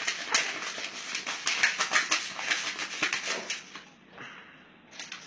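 Paper crinkling and tearing as an umbrella cockatoo bites and rips at a sheet held out to it, a dense run of quick crackles that dies down a little before the end, leaving a couple of softer rustles.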